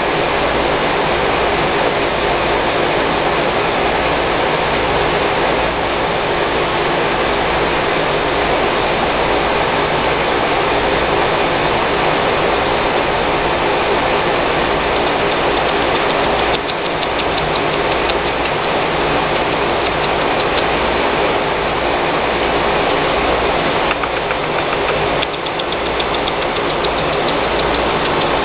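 A machine running steadily: a constant motor drone with a steady hum and dense noise over it.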